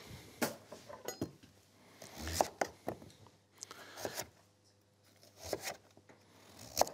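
Chef's knife slicing a raw sweet potato into wedges on a wooden cutting board. Each cut ends in a sharp knock of the blade on the board, about six in all, irregularly spaced.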